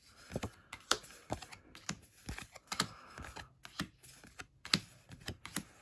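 Pokémon trading cards flipped through one by one in the hand, each card slid off the stack with a light click, about three a second in an uneven rhythm.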